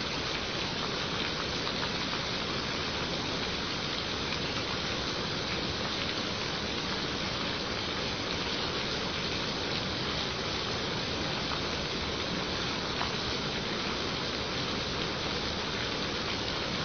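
Steady rain falling: an even hiss with a few faint ticks of single drops.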